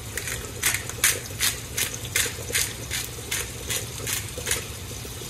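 Hand-twisted pepper grinder grinding peppercorns: about a dozen short crunches, two or three a second, stopping near the end.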